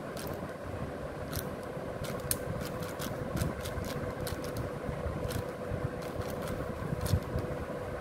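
A 6x6 Rubik's cube being turned by hand: a run of sharp plastic clicks at an uneven pace as the layers are twisted, thickest from about two to three and a half seconds in, over a steady background hum with a faint constant tone.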